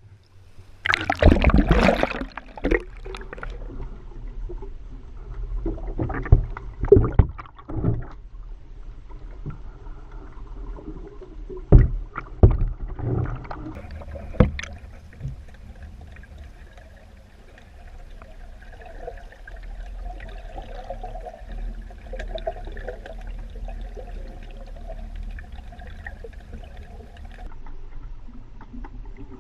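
Water sounds picked up by an action camera in its waterproof housing towed beside a kayak: a loud splash and rush of water about a second in as it goes under, a few sharp hits over the next dozen seconds, then a steady muffled underwater wash.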